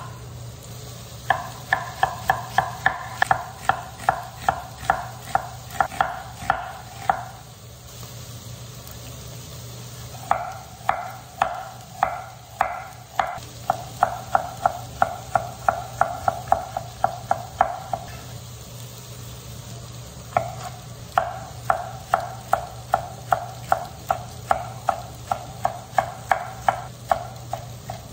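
Chef's knife slicing onion, carrot and green pepper on a wooden cutting board: three runs of steady, even knocks, about three strokes a second, with short pauses between them.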